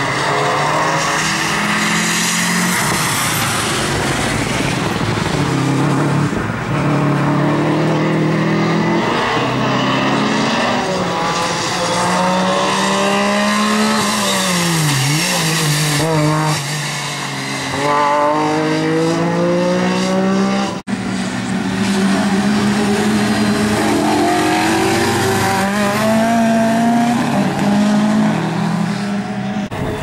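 MG Metro 6R4 rally car's 3-litre V6 engine revving hard, its pitch climbing and falling repeatedly through gear changes, with a deep drop as it lifts off about halfway. After a sudden break near the end, another rally car's engine is heard revving.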